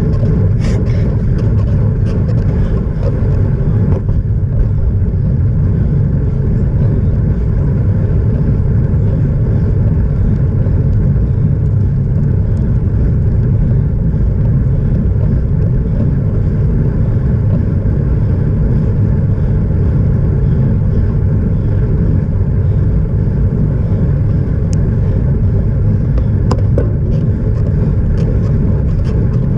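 Steady low rumble of wind buffeting the microphone of a camera on a bicycle being ridden along a tarmac road, mixed with tyre noise on the asphalt.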